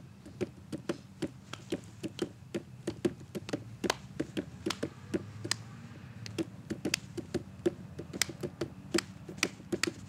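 Two people clapping their hands in quick, uneven claps, several a second and out of step with each other.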